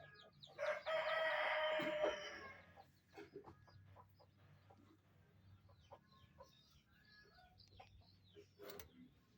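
A rooster crowing once, a loud held call of about a second and a half, followed by scattered short, softer chicken clucks.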